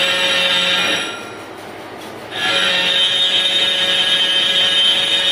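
Metal lathe cutting tool screeching against a spinning metal workpiece in two long cuts. It stops about a second in and starts again just before halfway, while the lathe keeps running quietly in the gap.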